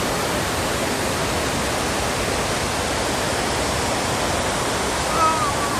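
Waterfall rushing with a steady, even roar. A short, faint high-pitched sound rises above it near the end.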